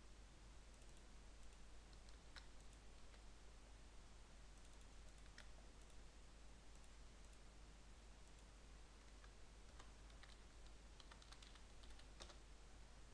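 Faint computer mouse clicks and keyboard typing over a steady low hum and hiss: a few scattered clicks, then a quick run of keystrokes near the end.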